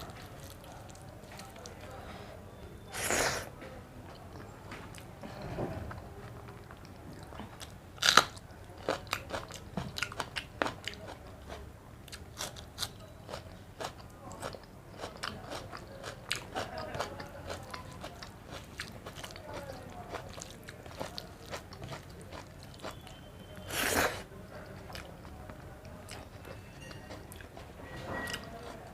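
A person eating egg curry and rice close to the microphone: chewing and wet mouth clicks, with a few louder crunchy bites, one a sharp crunch about eight seconds in, followed by a long run of quick chewing clicks.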